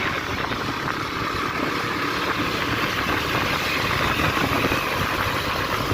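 A vehicle's engine running steadily.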